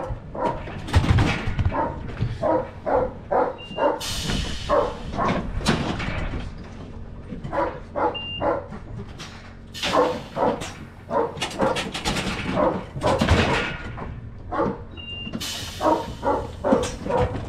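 A working sheepdog barking over and over in short barks. A brief high beep sounds three times, and a sharp hiss follows two of them.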